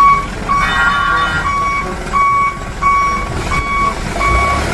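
Vehicle reversing alarm: a single steady high beep repeating about three times every two seconds. A brief higher, multi-toned sound overlaps it about a second in.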